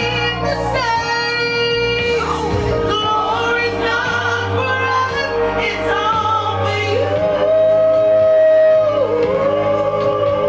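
A woman singing a song over instrumental accompaniment, gliding between sustained notes. One long held note about two-thirds of the way through is the loudest moment.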